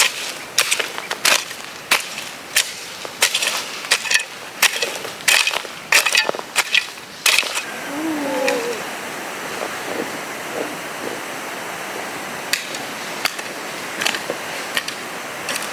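Repeated sharp strikes, roughly one or two a second, stop about seven seconds in. A steady rushing hiss and a few faint scattered clicks follow.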